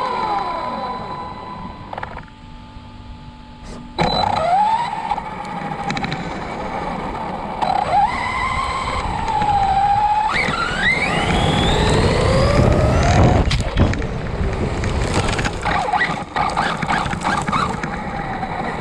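Arrma Outcast V2 RC truck's brushless motor and drivetrain whining, the pitch gliding up and down as the truck speeds up and slows, with its tyres churning beach sand and shell. In the second half a hard knock is followed by a rattle of further knocks.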